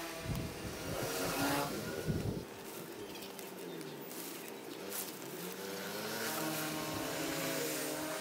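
Small petrol engine running, its pitch rising and falling as its speed changes.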